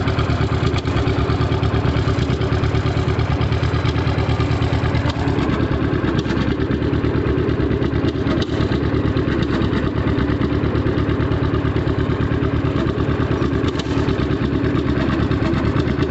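John Deere G tractor's two-cylinder engine running steadily, its firing pulses close together and even; the tone changes a little about five seconds in.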